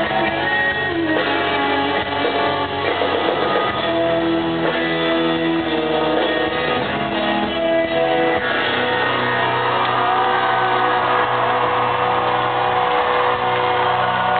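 Electric guitar solo played live over a full rock band through an arena PA. The guitar holds long notes and bends them in pitch in the second half.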